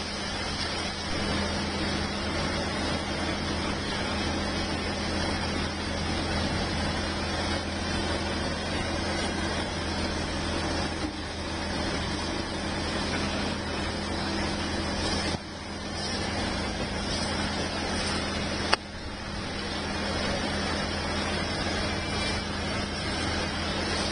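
Heavy diesel engine of a railway crane running steadily with a low hum. The sound dips briefly twice in the second half, with a sharp click at the second dip.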